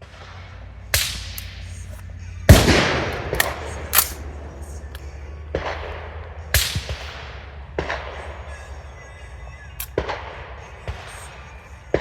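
Gunshots from a handgun and carbine: about ten sharp reports at uneven intervals, the loudest about two and a half seconds in. A steady low rumble runs underneath.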